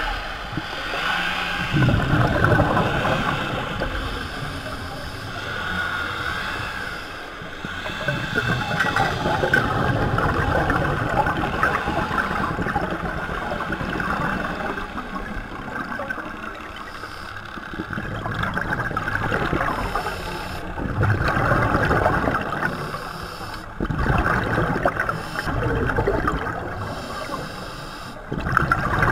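Scuba diver breathing underwater through a regulator: bursts of exhaled bubbles gurgle and crackle, swelling and fading every few seconds.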